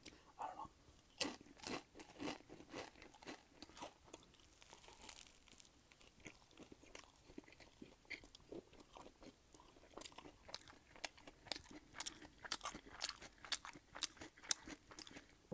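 Crunching and chewing of crunchy food, close to the microphone, a rapid run of sharp crackles that grows denser about ten seconds in.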